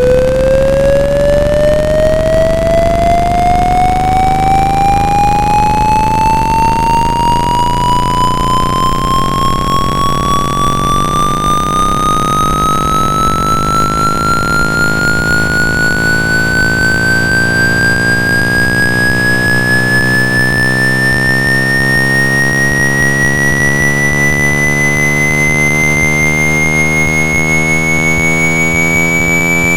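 Generated pure tone sweeping slowly and steadily upward in pitch, from a mid tone to a high whistle, with faint overtones and a steady low drone underneath. It is a speaker-cleaning frequency sweep, meant to vibrate trapped water and dust out of a phone speaker.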